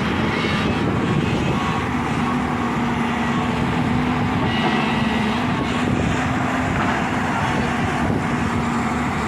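A JCB excavator's diesel engine running steadily under work, a constant drone with a held engine note.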